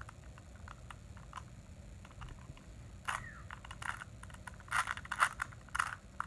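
Rubik's cube being twisted by hand: its plastic layers click and rattle in several short, quick runs, mostly in the second half.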